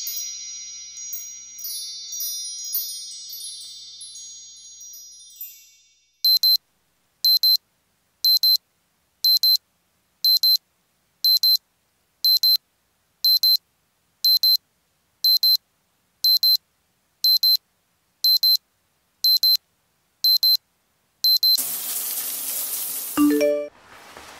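Chime-like ringing tones fade out over the first few seconds. Then an electronic alarm beeps once a second, about sixteen times. A burst of hissing noise cuts in near the end.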